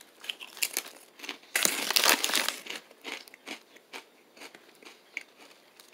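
Crunching and chewing a thick TGI Fridays Cheddar & Bacon Potato Skins snack chip: irregular crackly crunches, loudest about two seconds in, then smaller crackles as the chewing goes on.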